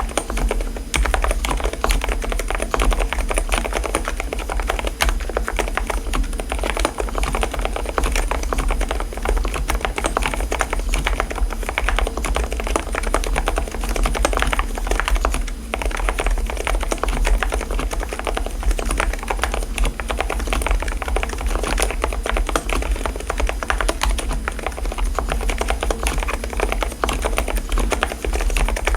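Fast, continuous typing on a mechanical keyboard with silent key switches: a dense, steady patter of muted keystrokes.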